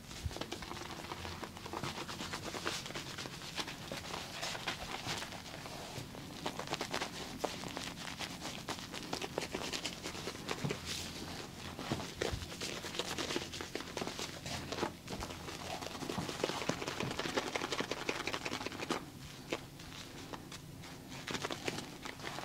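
Close-up barber grooming sounds on hair and skin: dense, scratchy crackling and rubbing over a faint steady low hum.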